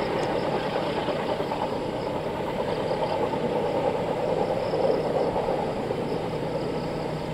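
Passenger train running away down the main line: a steady rumble of wheels on the rails that eases off slightly near the end.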